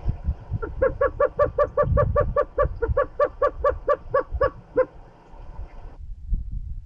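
Greater roadrunner calling: a rapid run of about twenty even, similar notes, roughly five a second, that starts just under a second in and stops about five seconds in. Wind rumbles on the microphone underneath.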